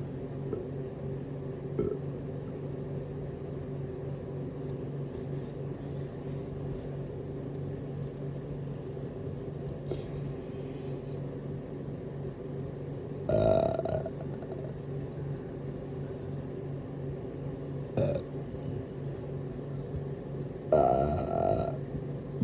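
A person burping twice, once about halfway through and again near the end, each burp lasting under a second. A brief, sharp sound falls between them, and a steady low hum runs underneath.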